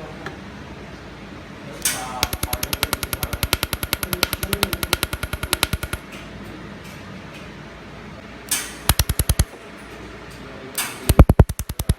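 Handheld laser welding gun pulsing on stainless steel: rapid sharp ticks, about ten a second, for roughly four seconds, a short burst about nine seconds in, and another fast run starting near the end.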